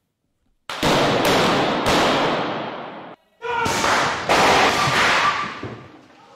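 About six handgun shots in two quick groups, each a sharp bang that rings on in a long echo around a large hall, with a short break about three seconds in.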